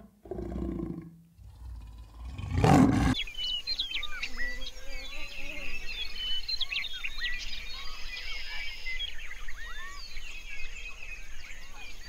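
Leopard growling, then giving one loud roar about three seconds in. After that comes a busy chorus of many short chirping calls over a steady high buzz.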